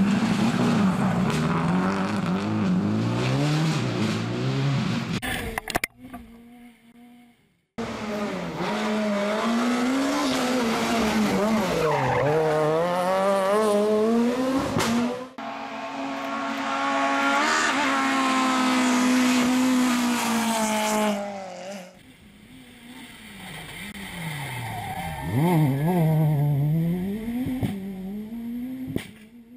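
Rally cars passing one after another at full throttle, their engine notes climbing and dropping sharply with each gear change and lift-off, with tyre and gravel noise. There is a brief lull about six seconds in.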